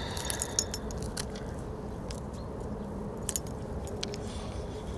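Spinning reel and tackle being handled during a cast and retrieve: scattered light metallic clicks, with one sharper click a little over three seconds in, over a low steady rumble.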